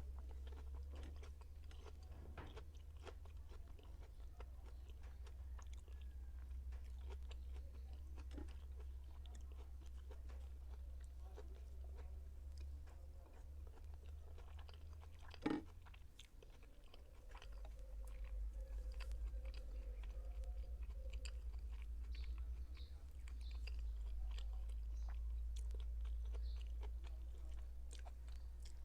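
Close-miked chewing of Spanish-style sardines, with many small wet clicks and one sharp click about halfway through. A steady low hum runs underneath.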